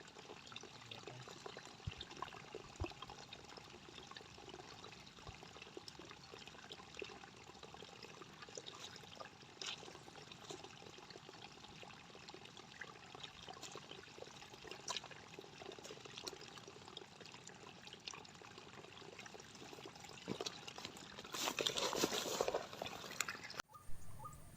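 Faint splashing and trickling water with scattered small clicks and rustles, and a louder burst of splashing about 21 seconds in that lasts around two seconds.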